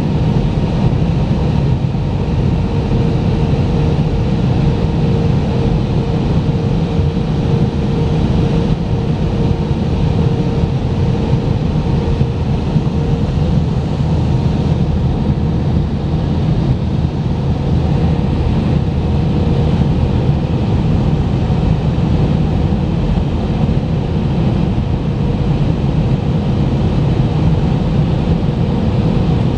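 Steady cabin noise of an Airbus A319 on its landing approach, heard from a window seat over the wing: engine hum and rushing airflow, with a faint steady tone in it for the first dozen seconds or so.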